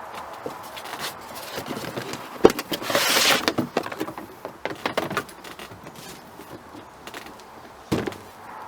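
A cardboard shipping box and its packaging being opened and handled: scattered clicks and knocks, a sharp knock and a short burst of rustling about three seconds in, and another knock near the end.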